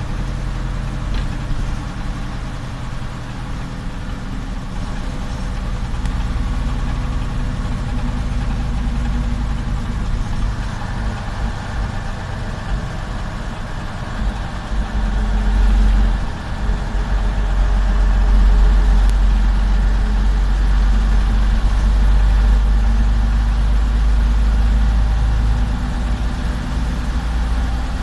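Diesel engine of a Jelcz 043 bus running as the bus drives, heard from inside the vehicle. It is steady at first, dips briefly about sixteen seconds in, then runs louder for much of the second half.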